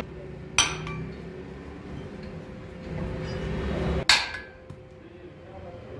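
Hammer striking steel on a truck tie rod end held in a stand: two sharp metal blows about three and a half seconds apart, the second ringing briefly.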